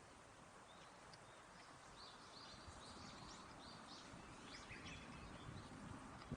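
Near silence: faint background noise with a few faint, short, high chirps, like small birds.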